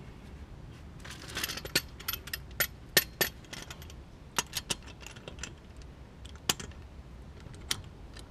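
Irregular metallic clinks and taps of tools and brake-caliper hardware being handled, with a dense cluster of sharp clicks from about one to four seconds in, then scattered single clicks.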